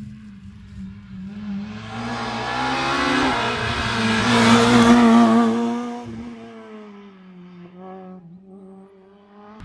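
Rally car engine at full throttle, coming up the road, passing close by and fading away. The pitch climbs, drops once with a gear change about three seconds in, and the sound is loudest around five seconds in.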